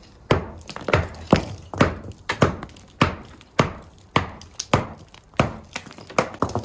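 Repeated sharp strikes on an old brick wall as it is knocked down, about two blows a second.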